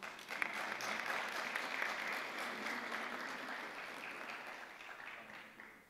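Audience applauding, starting suddenly and slowly dying away near the end.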